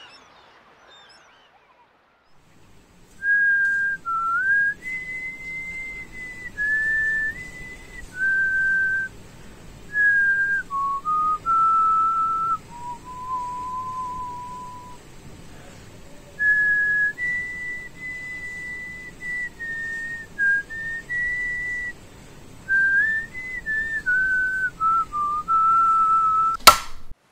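A person whistling a slow tune of held notes with small slides between them, starting about three seconds in. A single sharp click just before the end.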